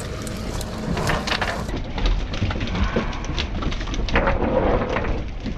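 Wet cast net emptied onto a fiberglass boat deck, and the small baitfish from it flapping on the deck in a dense, irregular patter of taps.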